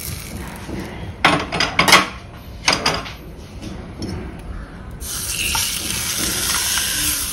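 Hot ghee tempering poured from a small iron tadka ladle into a steel bowl of liquid, hissing as it hits. Around the middle, a few sharp metal clinks of the spoon and ladle against the steel bowl; near the end, more tempering is poured in with a steadier hiss.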